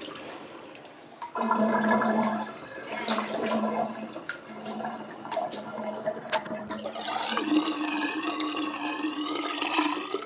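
Water swirling down a bathroom sink drain in a whirlpool, gurgling and sucking, with a wavering whistle-like tone in the last few seconds.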